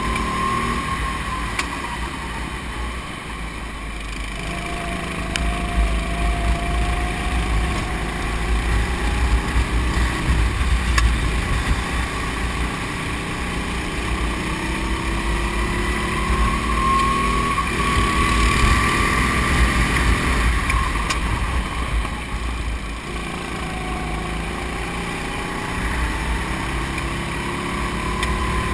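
Racing kart engine heard onboard, its pitch rising as the kart accelerates and falling as it slows for corners: it drops early on, climbs for a long stretch, drops again about two-thirds through, then climbs near the end, over a steady low rumble.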